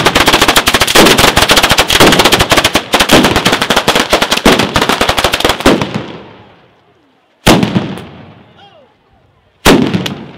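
Italian 'batteria' ground display of firecrackers going off: a dense, rapid string of loud bangs that thins and dies away after about six seconds, then two single loud bangs about two seconds apart.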